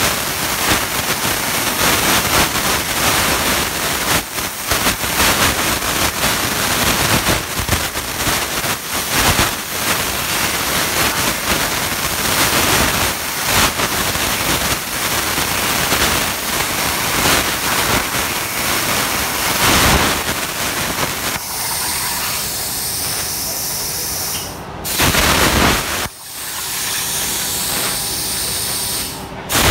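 CNC plasma cutting torch cutting metal: a loud, rough hiss that about two-thirds through changes to a steadier hiss with a faint hum under it, broken twice by brief cut-offs near the end.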